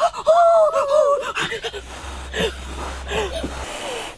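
A boy's voice in one drawn-out, wavering exclamation lasting about a second, followed by fainter short vocal sounds and scattered noises.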